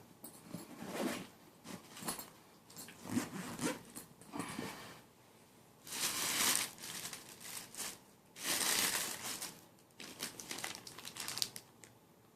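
A cardboard box and its packaging being opened and handled, rustling and crinkling in irregular bursts with quiet gaps, including two longer bursts about halfway through and about two-thirds of the way in.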